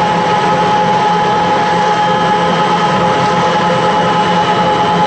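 Rotexmaster YGKJ560 vertical pellet mill running and making wood pellets: a loud, steady machine drone with a constant whine.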